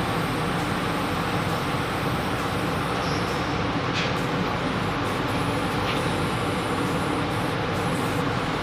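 Steady rushing air noise of a powder-coating spray booth's extraction fan running.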